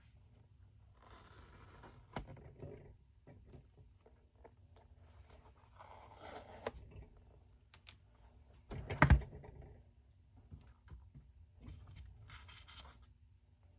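Cardboard and paper packaging of a smartwatch box being opened by hand: irregular scraping, rustling and tearing sounds with small clicks, and one sharp knock about nine seconds in.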